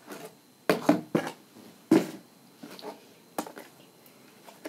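A few sharp clicks and knocks, irregularly spaced, as plastic slime containers are handled and their lids opened and closed.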